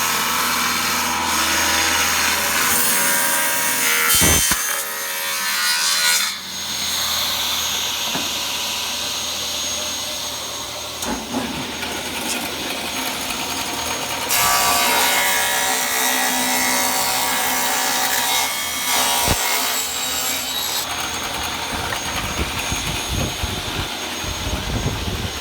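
Table saw running and cutting through the wooden wall of a beehive super, cutting out a rotten or damaged strip. The sound shifts in loudness and tone several times over its length, with a few sharp knocks along the way.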